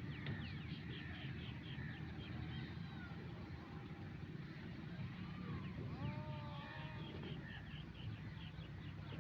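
Birds calling: two runs of rapid, repeated chirps, with a few lower sliding whistles in between, over a steady low rumble.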